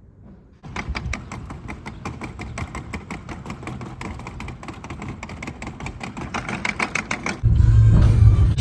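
A machine: a fast run of ticks lasting several seconds, then a sudden, much louder low rumble that starts near the end.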